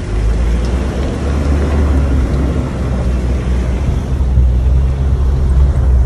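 Pickup truck on the move: a loud, steady low rumble of engine and road noise.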